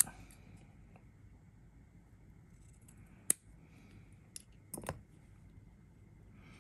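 Scissors snipping through cotton wick to trim its ends at a slant: a sharp snip at the start, another a little over three seconds in, and a few smaller clicks just before five seconds.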